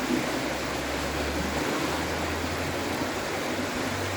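Fast-running river water rushing steadily.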